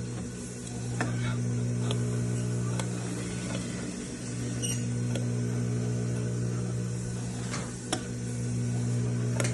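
Steady low electrical hum, dipping briefly twice, with a few light clicks scattered through it.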